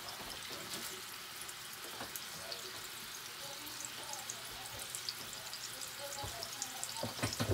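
Ground venison patty frying in hot olive oil in a nonstick skillet: a steady sizzle with many small crackles and pops from the oil. A few knocks near the end.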